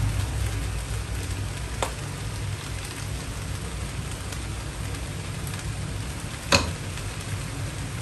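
Fried rice sizzling with a steady hiss in a pot on the stove while it is stirred with a wooden spoon. A single sharp knock sounds about six and a half seconds in.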